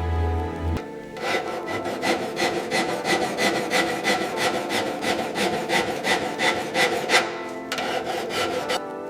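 Hand filing or rasping: rhythmic back-and-forth scraping strokes, about three to four a second. A little music sounds before the strokes begin and again briefly near the end.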